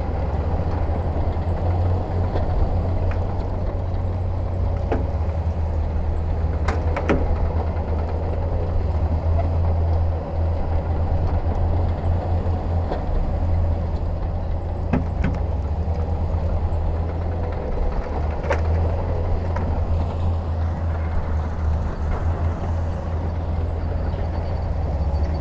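Heavy diesel earthmoving machinery running steadily with a deep, constant engine drone. A few sharp clanks come through, about 7, 15 and 18 seconds in.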